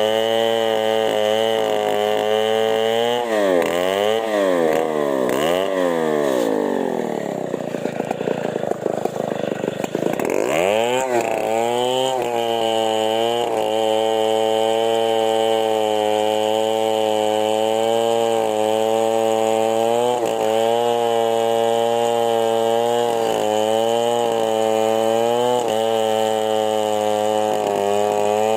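Chainsaw engine running hard. It revs up and drops back twice early on, then its pitch sags for several seconds before climbing back to a steady high speed with small wobbles.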